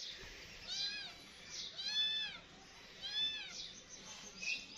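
A kitten meowing three times, each a high call that rises and then falls in pitch, about a second apart.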